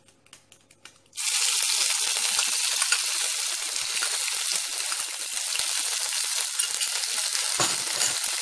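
Crushed garlic and ginger hitting hot coconut oil in a non-stick pan: the oil starts sizzling suddenly about a second in and keeps up a steady sizzle.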